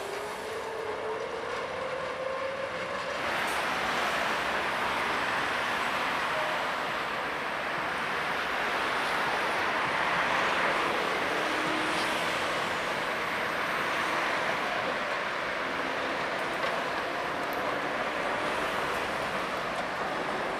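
City traffic with a tram running past on its tracks: a steady rush of cars and tram noise that swells gently towards the middle, with a faint low whine. The sound changes abruptly about three seconds in.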